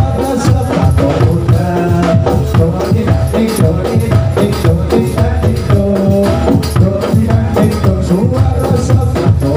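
Kubro siswo dance music: a steady beat of drums and jingling percussion under a repeating melody.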